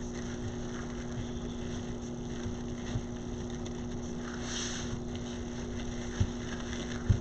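Steady background hum and hiss, with a brief rustle about four and a half seconds in and a couple of soft knocks near the end.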